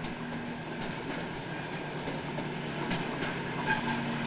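Small gasoline engines of rail speeders running steadily, with the wheels clicking irregularly over rail joints.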